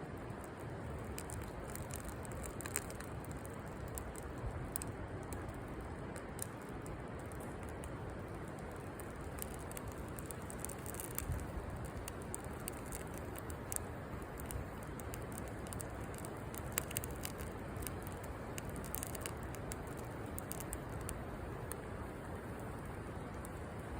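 Wood campfire crackling, with scattered sharp pops and snaps over a steady rushing background.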